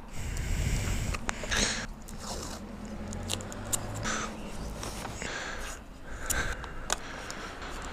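Adhesive tape being pulled off a roll and torn in a few short rips, with paper rustling and small handling clicks close to the microphone.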